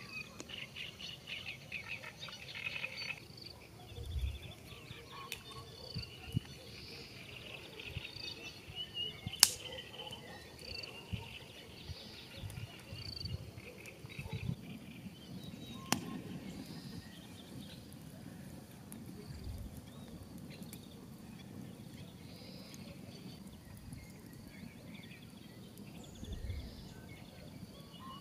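Countryside evening ambience: birds chirping and insects calling. There are two sharp clicks and a few dull low thumps.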